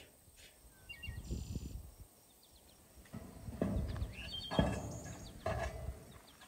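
Metal spade scraping and scooping ash off packed ground, three scrapes about a second apart in the second half, the middle one loudest. Small birds chirp over it.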